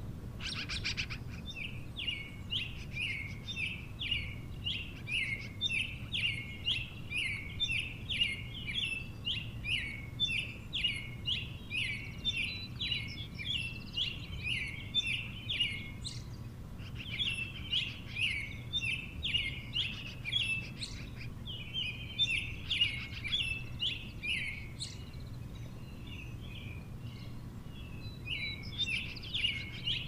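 Magpie calling: a rapid, steady run of short, high chirping notes, two or three a second, the repeated begging call of a magpie being fed by another. The calling pauses briefly about 16 and 20 seconds in and thins out for a few seconds near the end before picking up again.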